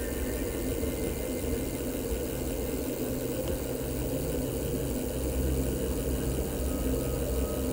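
Cargo bike tyres rolling on wet asphalt: a steady low rumble with a light hiss, without a break.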